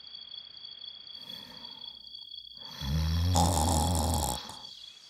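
A person snoring: one loud, low snore lasting about a second and a half, past the middle. It comes over a faint, steady high-pitched two-note whine.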